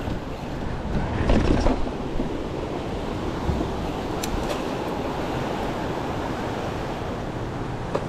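Wind noise on the microphone of a mountain bike's camera while riding, mixed with the bike's rolling and rattling, and a louder rough rattle about a second and a half in.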